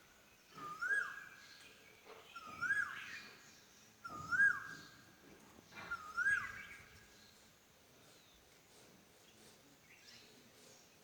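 A cuckoo calling: four whistled notes about two seconds apart, each sliding up and then holding briefly. The calls stop about seven seconds in.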